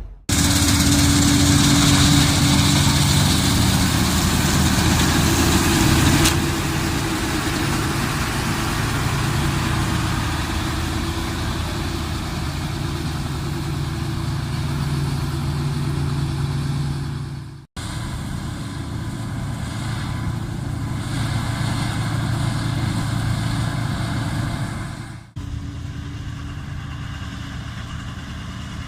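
Laverda M152 combine harvester running steadily while cutting wheat: a constant engine drone with the whir of its machinery. The sound breaks off abruptly twice and picks up again a little quieter.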